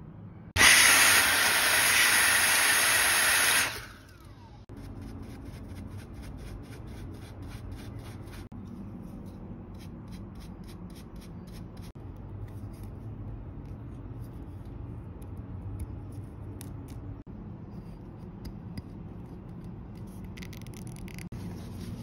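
A loud, even hiss lasts about three seconds, starting and stopping suddenly. After it, a wooden toothpick scrapes packed coffee fines out of a flat steel grinder burr: a long run of rubbing and quick, light clicks.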